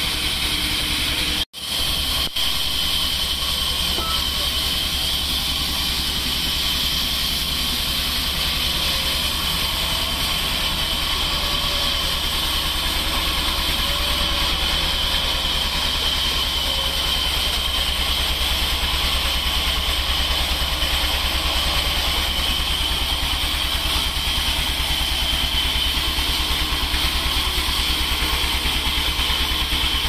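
Large vertical band sawmill running, its blade cutting through a log on the carriage: a steady machine drone with a high whine and hiss over a low hum. The sound cuts out for a moment about a second and a half in.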